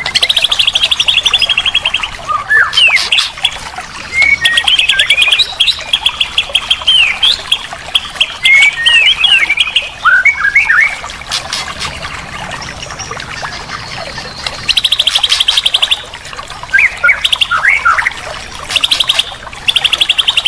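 Songbirds singing loudly: long, very fast trills of high repeated notes alternate with short whistled notes that slide up and down, with a quieter lull in the middle.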